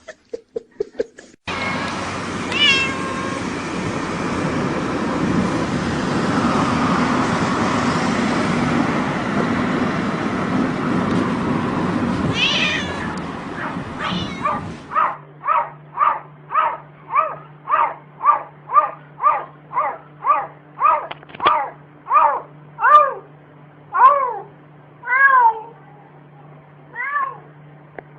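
A domestic cat meowing over and over. About halfway through it starts a fast, even run of short meows, roughly two a second. Toward the end the meows come fewer and longer. Before that, a steady rushing noise fills the first half, with only a couple of cries in it.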